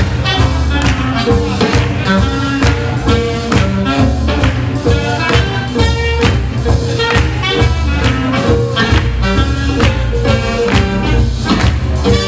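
Swing jazz band playing a tune with horns over a steady beat.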